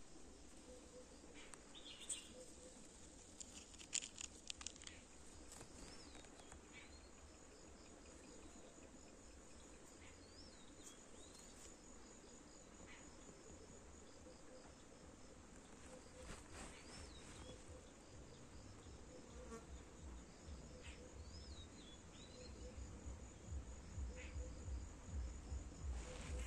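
Faint field ambience: insects keep up a steady, high-pitched pulsing trill, with short rising chirps every few seconds. A low rumble grows near the end.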